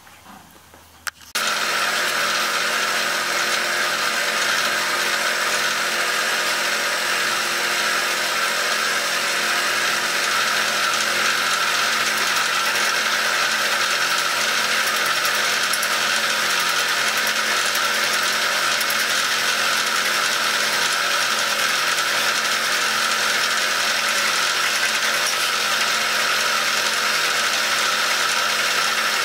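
Vertical milling machine running steadily, its cutter taking a skim cut across the glued-on bronze of a shaper rocker arm. The machine noise starts suddenly about a second in and holds at an even level.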